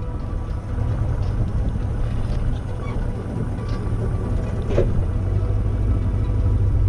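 Ford F-250 highboy's engine running low and steady as the truck creeps along, picked up close by a hood-mounted camera, with one short knock about five seconds in.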